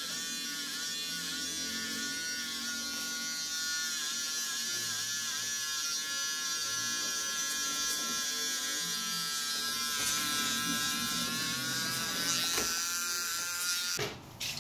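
Electric hair clippers running steadily, their pitch dipping briefly several times as the blades cut through long hair. They switch off near the end.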